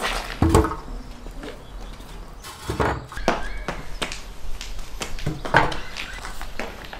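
Several separate knocks and clunks as the heavy domed ceramic lid of a tandoor is handled and set onto the oven.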